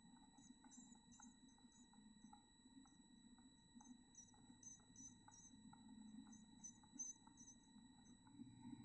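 Near silence with faint, rapid high-pitched chirps in short series of several notes, broken by pauses, over a steady faint high whine and scattered faint ticks.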